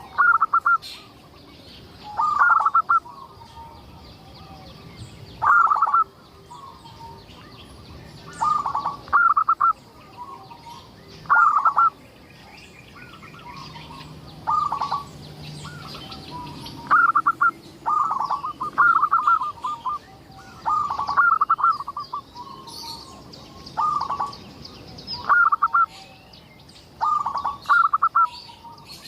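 Zebra dove (perkutut) cooing: short phrases of several quick notes, repeated every two to three seconds, with faint chirps of smaller birds higher up.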